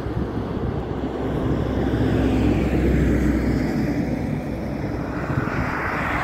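Airliner jet engines running, a steady rumble with a low hum that swells in the middle. Near the end a car passes close by.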